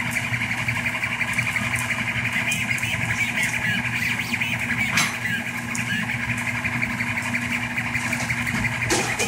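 Rostock MAX delta 3D printer running a print: its stepper motors buzz and chatter steadily as the carriages move the hot end, over a steady low hum. One sharp click about five seconds in.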